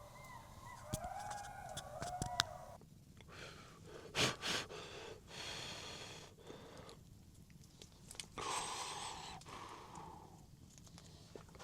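Wolves and jackals howling in wavering, gliding calls for the first three seconds, followed by scattered rustling and scuffing with one loud knock about four seconds in.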